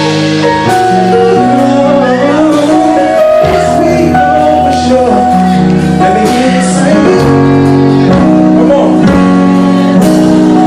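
Music with a male voice singing over sustained chords and a steady beat.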